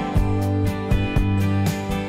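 Country-style instrumental background music with guitar and a steady beat of about two hits a second.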